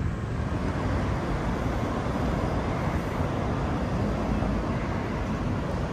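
Steady road traffic noise: the continuous rumble of cars on a multi-lane road.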